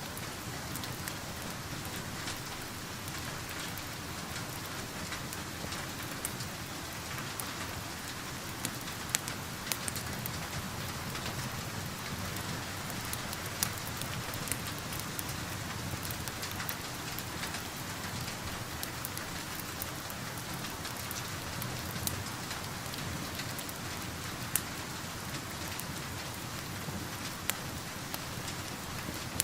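Steady rain pattering, with occasional sharp pops and crackles from a wood fire standing out over it.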